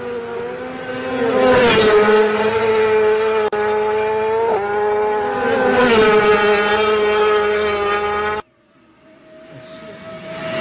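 Racing motorcycles passing at high speed, their engines held at high revs, the pitch dropping sharply as each one goes by, twice. After an abrupt cut, another bike is heard approaching, getting louder near the end.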